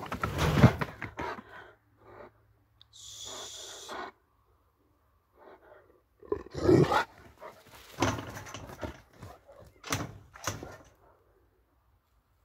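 Caucasian shepherd dog barking in separate bursts: once at the start, then again around seven, eight and ten seconds in.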